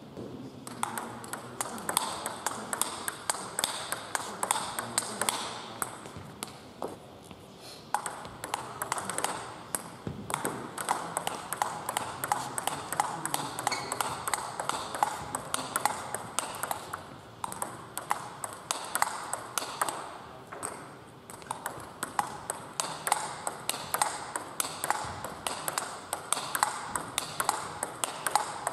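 Table tennis rallies: a steady stream of sharp clicks, a few per second, as the ball is struck by bats and bounces on the tables, with brief lulls between rallies.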